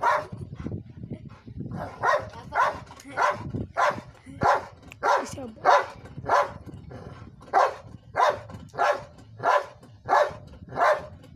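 Golden retriever barking repeatedly on command, short sharp barks at about two a second.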